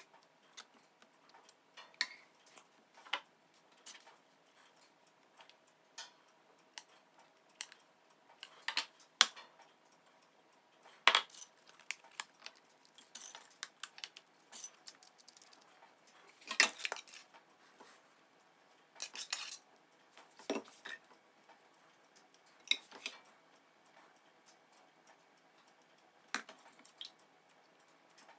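Metal serving spoon and ladle clinking and scraping against stainless-steel pots and a glass baking dish: scattered knocks, with a few louder clatters.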